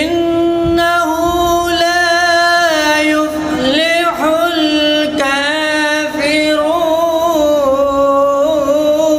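A man's unaccompanied voice chanting a religious recitation in long held, ornamented melodic phrases with brief pauses between them.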